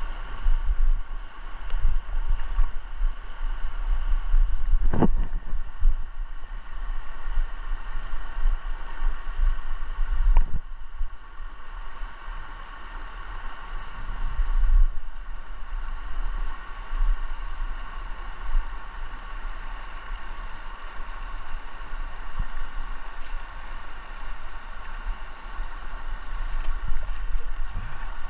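River water rushing over rocks and riffles, a steady wash with a low rumble that swells and fades on the microphone. Two brief knocks stand out, about five and ten seconds in.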